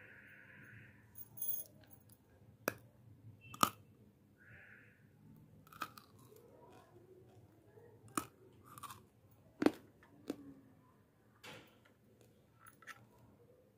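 Fingers handling small gummy candies and miniature plastic toy pieces: quiet handling noise with about ten sharp clicks and taps scattered through, the loudest around four and ten seconds in.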